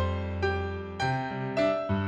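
Solo piano playing a melody in accented chords over a pedalled broken-chord bass, with a new chord struck about every half second.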